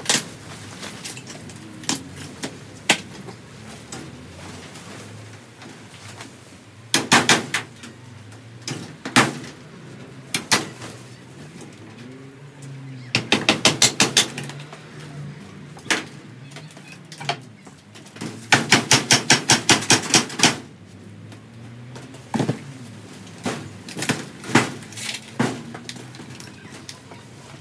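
Hand tools knocking and clicking against old caravan wall timber, screws and nails as the rotten frame is stripped out. Scattered sharp knocks, with two quick runs of about six taps a second, one about 13 seconds in and one about 18 seconds in.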